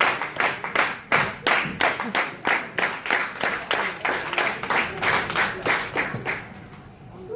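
Hands clapping in a steady rhythm, about three claps a second, with some clapping near and loud. The clapping stops about six seconds in.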